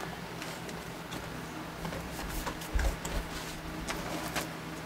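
Freshly milled black walnut boards being laid onto a drying stack: scattered light knocks of wood on wood, with a heavier thump about three seconds in.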